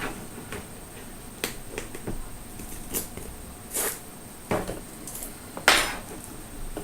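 Cutting open and handling a sealed box of trading cards: scattered clicks and short scraping rasps, the loudest a little under six seconds in.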